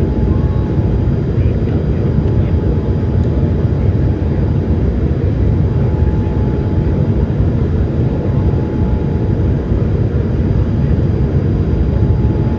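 Steady cabin noise inside a Boeing 787 Dreamliner during departure: a deep, even rumble of engines and airflow, with a faint steady tone running through it.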